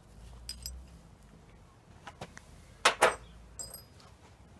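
Light metallic clinks and taps of tools and small steel parts being handled while the countershaft sprocket and its locking plate are worked off a motorcycle engine, with two sharp clinks close together a little past the middle.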